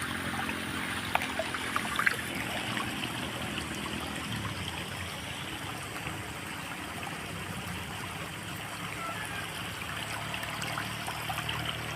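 Small stream of water flowing steadily, a soft rush and trickle as it slides across a drainage surface, with a few light drip splashes in the first couple of seconds.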